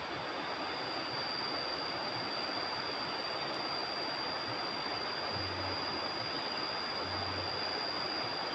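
Steady rush of flowing river water, with a thin, steady high-pitched whine over it.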